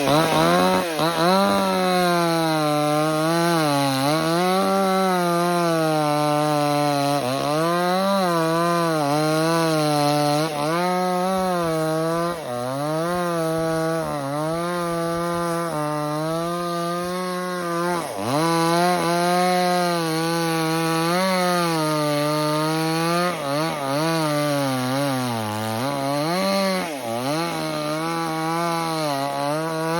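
Chainsaw running while cutting into a tree, its pitch rising and falling over and over as the chain bites into the wood and frees. The revs drop deeply a couple of times, about eighteen seconds in and again near twenty-six seconds.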